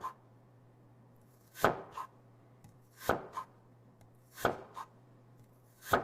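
A knife slicing okra on a chopping board: four cuts about a second and a half apart, each followed by a lighter tap.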